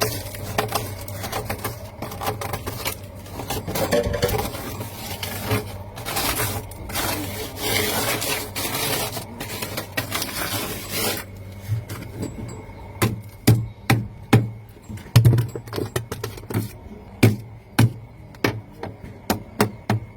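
Rough scraping and rubbing for about eleven seconds, then a string of sharp, irregular knocks, over a steady low hum.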